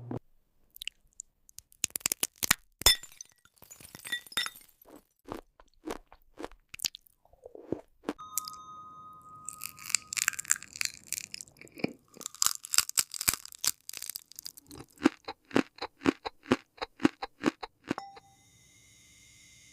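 AI-generated glass-food ASMR sounds: crisp crunching, cracking and tapping in a long run of sharp clicks and crackles. There is a brief ringing tone about eight seconds in, and the clicks come fast and even between about twelve and eighteen seconds.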